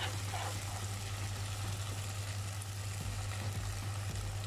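Ketchup-and-honey sauce sizzling gently in a non-stick pan, with a steady low hum underneath.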